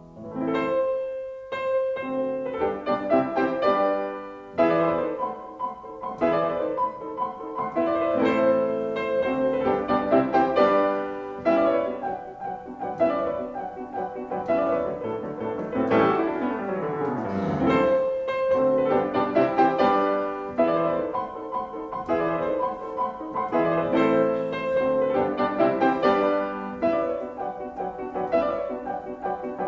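Background piano music: a calm piano piece with a steady flow of notes.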